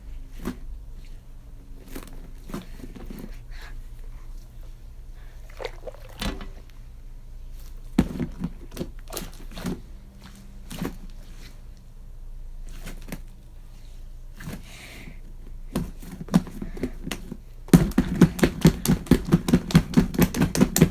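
A giant squishy ball fidget being handled and squeezed, with scattered soft squishes, clicks and knocks, then near the end a fast run of loud thumps, about five a second.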